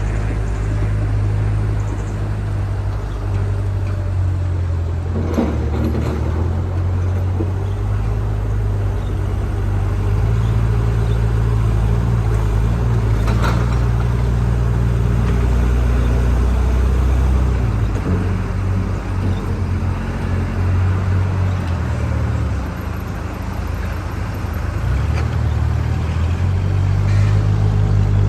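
Diesel engine of a JCB backhoe loader running steadily, its note shifting in pitch and level every few seconds as it works. A couple of short knocks stand out, one about five seconds in and another near the middle.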